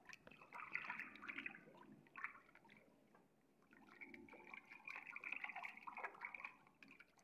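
Faint splashing and dripping as a cat's paw scoops and slaps at water in a plastic basin, in two spells with a quieter gap about three seconds in.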